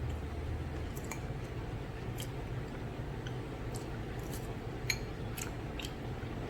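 Someone eating spicy noodles: scattered small clicks and scrapes of cutlery on a plate, with soft chewing, the sharpest click about five seconds in, over a steady low hum.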